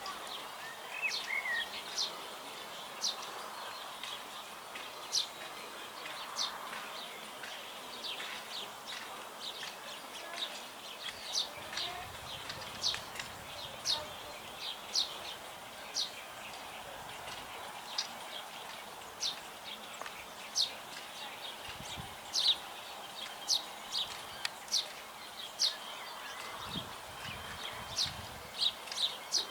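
House sparrows chirping: short, sharp chirps repeated irregularly, about one or two a second, over a steady background hum.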